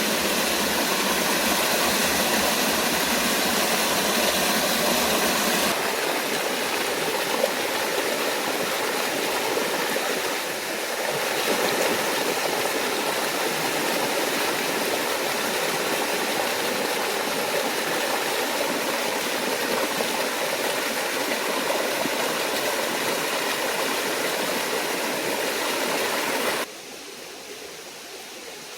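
Steady rush of water from a small forest waterfall and stream, dropping suddenly to a quieter wash of water near the end.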